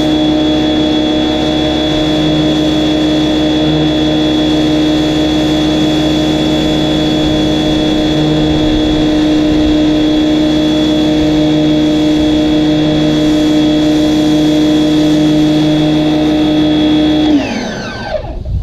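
Ivation 2200 PSI electric pressure washer's motor and pump running with a steady hum. About seventeen seconds in it is switched off, and its pitch falls quickly as it winds down.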